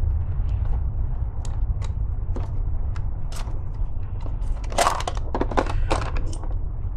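Hard plastic clicking and rattling as a trail camera's housing is handled, with a quick run of clicks about five seconds in as its battery tray is unlatched and pulled out, over a steady low rumble.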